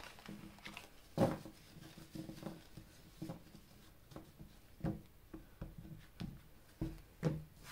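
A deck of tarot cards being shuffled by hand and then cut and set down on a cloth-covered table: soft riffling with scattered light taps, a few sharper ones about a second in and near the end.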